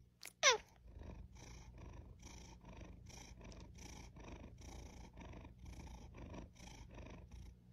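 Domestic cat purring softly close to the microphone, an even rhythmic pulse of about three strokes a second. A short, louder glide slides quickly down in pitch about half a second in.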